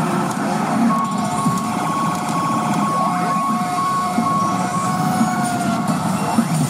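P Abunai Keiji pachinko machine playing a reach effect: a held two-pitch electronic tone, a siren-like alarm, from about a second in until near the end, over a dense low clatter.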